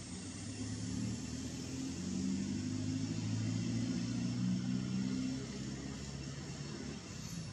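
An engine's low hum, swelling for a few seconds and then falling back after about five seconds, as of a motor vehicle going by, over a steady high hiss.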